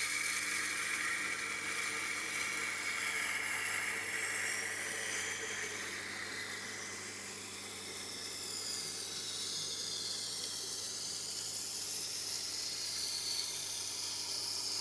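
Steel blade of a long Victorinox scimitar knife being ground on a Tormek wet-stone sharpener's turning grindstone: a steady, rasping hiss whose pitch drifts as the blade is drawn along the stone, over the machine's low motor hum. The grinding is raising a burr on the edge.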